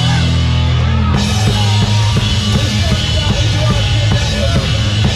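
Loud rock music with sustained low notes and a drum kit. The drums and cymbals come in hard about a second in and keep a steady beat.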